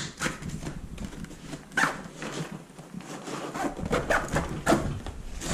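A fabric tackle backpack being packed: scattered rustling and clicks, with plastic tackle boxes knocking against it a few times.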